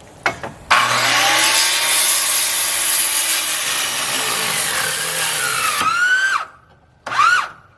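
Electric power saw cutting through a 2x4 board for about five seconds: the motor's whine sags under load, rises again and cuts off. Near the end the motor gives one short burst. The owner suspects afterwards that he had not tightened the blade.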